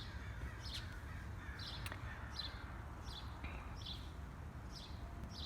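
A bird calling with short, high chirping notes, about seven in a row, roughly one a second, over a steady low rumble.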